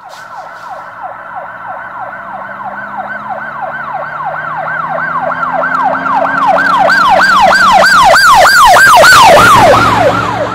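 Siren-like electronic swooping tone repeating over a low drone, the swoops coming faster and growing louder toward a peak near the end.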